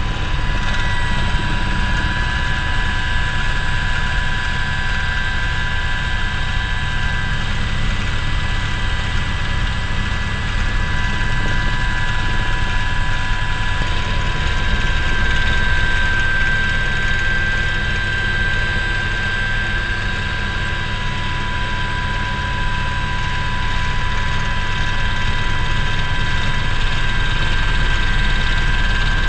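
Aérospatiale Alouette II helicopter heard from inside its open cabin in flight: a steady high turbine whine over the fast, even chop of the main rotor, all loud and constant.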